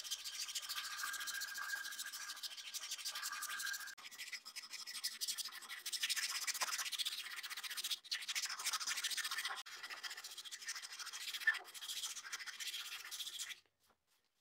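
Cloth-backed abrasive sanding strip pulled back and forth around a wooden hammer handle held in a vise, shoe-shine style. Fast, rasping sanding strokes with brief pauses, stopping shortly before the end.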